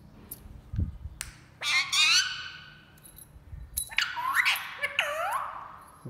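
Indian ringneck parrot vocalizing in two high-pitched squawky bursts, one about one and a half seconds in and a longer one from about four to five seconds in, with a few light clicks before the first.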